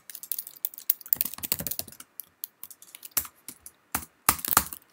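Typing on a computer keyboard: irregular runs of keystrokes, sparser in the middle and a quick burst near the end.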